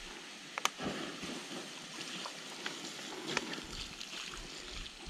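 Water being poured over a campfire's embers and a burning log: a steady hiss and slosh, with a few faint crackles.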